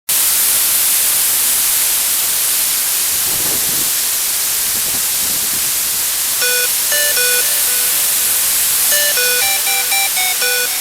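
Loud steady hiss like static or rushing water, joined about six seconds in by a plinking, music-box-like melody of high notes.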